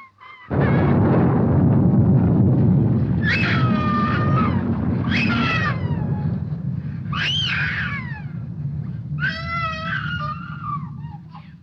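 A sudden clap of thunder about half a second in, followed by a long, loud rumble that slowly fades. Over it, five high wailing cries.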